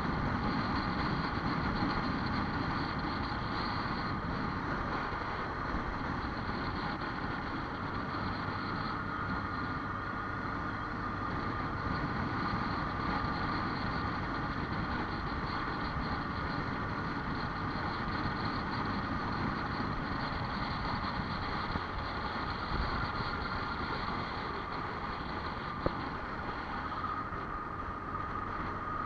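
A vehicle driving steadily along a road: constant engine and road noise with no change in pace.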